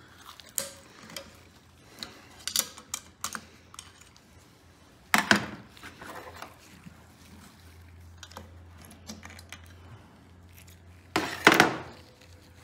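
Light metallic clicks and clinks of hand tools and engine parts as an intake valve spring is worked off a small engine, with two louder clatters, one about five seconds in and one near the end.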